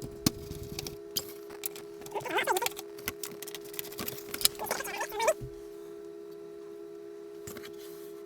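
Small metal clicks and rattles of screws being undone and handled on a VIC-20 home computer, with two short wavering squeaks among them; the handling stops about five and a half seconds in. A steady electrical hum tone runs underneath throughout.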